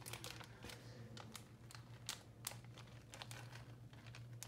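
Plastic cheese packet crinkling with scattered faint crackles as it is handled and tipped out over a bowl, over a steady low hum.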